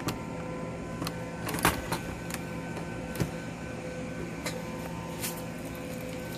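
Scattered light clicks and taps from handling a laptop's plastic case parts and tools during disassembly, a few irregularly spaced over a steady low hum.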